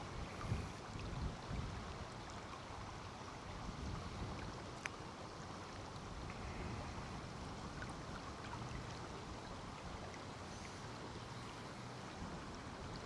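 Steady rush of river water, with wind buffeting the microphone in low gusts during the first couple of seconds.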